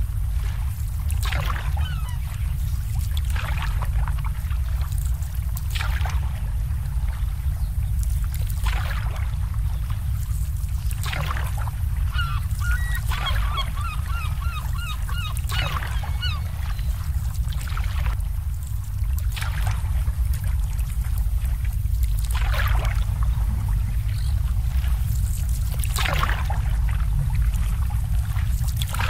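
Harbour water slapping and lapping against boat hulls every two or three seconds over a steady low rumble. In the middle, waterfowl call in a quick run of short notes for a few seconds.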